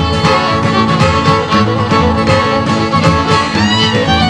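Country band playing an instrumental passage: fiddle leading over guitar with a steady beat, the fiddle sliding between notes near the end.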